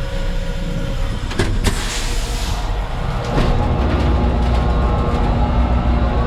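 Diesel engine of a Terex FD4000 front-discharge concrete mixer truck running with a steady low rumble. A couple of clicks and a short hiss come around two seconds in. The engine grows louder from about three and a half seconds.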